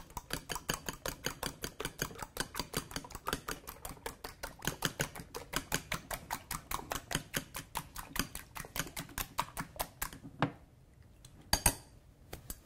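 A metal fork beating raw eggs in a glass mixing bowl, ticking quickly and evenly against the glass. It stops about ten seconds in, followed by a couple of single taps on the bowl.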